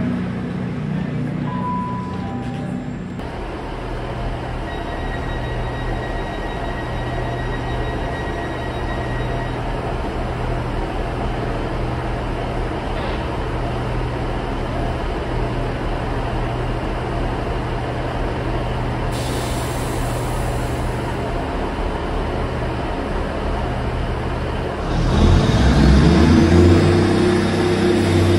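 Underfloor diesel engines of a GWR Class 150 Sprinter diesel multiple unit running steadily at idle, with a short hiss of air partway through. Near the end the engines open up and get louder, their note rising, as the train starts to pull away.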